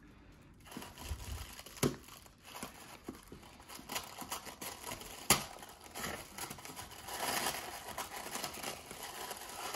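Tissue paper crinkling and rustling as a hand pokes at the paper covering plastic cups on a punch board, with scattered light taps and one sharp tap about five seconds in, and denser rustling a little after.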